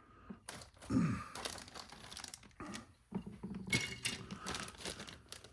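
Plastic parts bag crinkling while small plastic kit parts are handled, in irregular rustles with a few light clicks.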